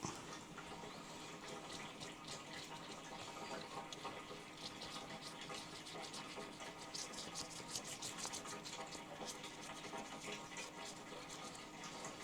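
Faint trickling water, with many small light clicks and rustles over it.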